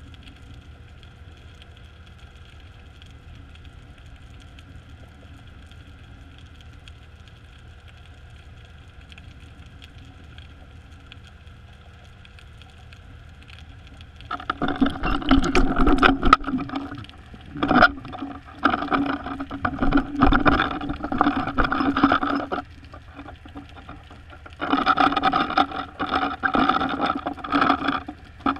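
Steady underwater mechanical hum heard through the housing of a camera on a deep baited line. About fourteen seconds in, loud rough knocking and scraping begins in bursts several seconds long with short gaps, as sharks crowd the bait and jostle the line and camera.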